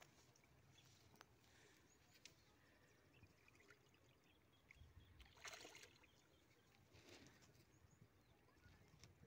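Near silence, with faint water splashes from a hooked katla thrashing at the surface; the loudest splash comes about halfway through.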